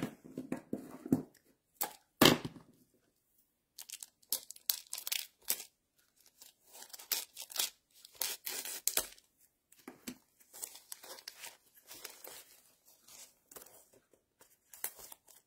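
Clear plastic shrink-wrap on a pack of cards and envelopes crinkling and tearing as it is peeled open by hand, in short irregular crackles with a sharper rip about two seconds in.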